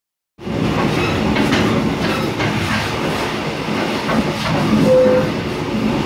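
A Mugunghwa-ho passenger train running at speed, heard from inside the carriage: a steady rumble and rattle of the wheels on the track.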